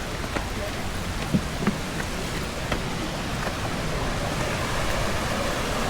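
Fast-flowing river rushing in a steady noise, with a few faint knocks over it.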